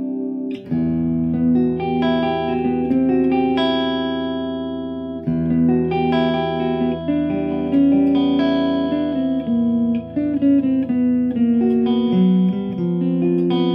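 Ibanez RG Prestige electric guitar on its DiMarzio Air Classic neck pickup, played through a Blackstar amp with a clean tone: a melodic passage of single notes and chord tones, sweet-sounding and close to a single-coil but thicker. New phrases start about a second in and again near the middle.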